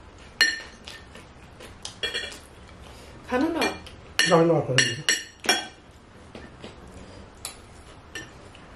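Metal spoon and chopsticks clinking and scraping against ceramic dishes, with about a dozen sharp clinks spread through. A person's voice is heard briefly in the middle.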